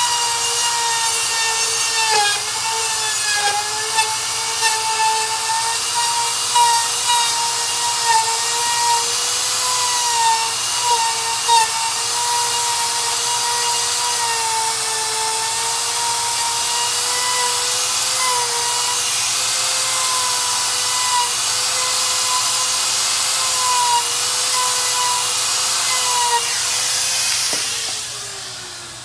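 Handheld power tool running steadily while cutting the rubber lugs off a lawnmower tire: a high motor whine that dips slightly in pitch as it bites. Near the end it is switched off and winds down with a falling pitch.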